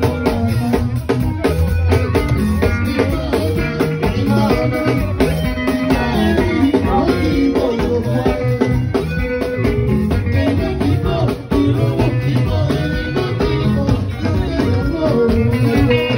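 Live band music: electric guitar and bass guitar over a drum kit with a steady beat, with a voice singing.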